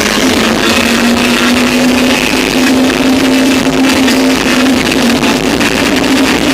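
Very loud, distorted music blasting from large DJ sound systems in a sound-system competition, with a steady low drone held throughout.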